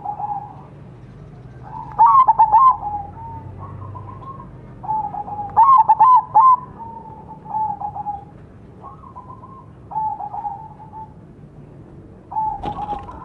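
Crossbred zebra dove (perkutut) cooing: two loud phrases of rapid staccato coos about two and six seconds in, each trailing into softer drawn-out coos, with quieter coo phrases between and after. A brief sharp knock near the end.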